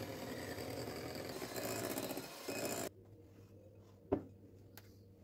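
Electric hand mixer beating eggs and sugar in a ceramic bowl, cutting off abruptly about three seconds in. A single light knock follows about a second later.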